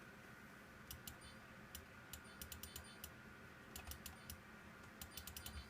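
Light, sharp clicks from a computer's controls, some single and some in quick runs of four to six, over a faint steady electrical hum.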